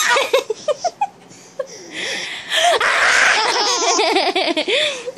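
Toddler laughing during peekaboo: a few short bursts at first, then from about halfway a long run of rapid belly laughs.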